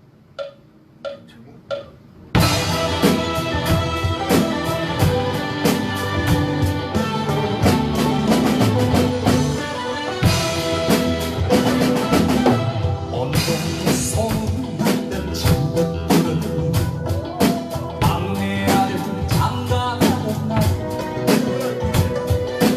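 A few sharp stick clicks, about two a second, then at about two seconds in a band backing track with drum kit comes in and plays on with a steady beat: the intro of a trot song.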